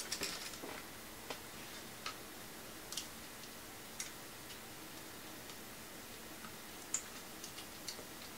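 Faint, irregular small clicks and ticks from fingers and small parts working inside an open laptop, as the Wi-Fi antenna leads are pressed back onto the Wi-Fi card's connectors. A little cluster comes in the first second, then single clicks about a second apart, and a few more near the end.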